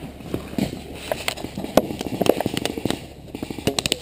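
Paintball markers firing: irregular sharp pops throughout, with a quick string of shots near the end.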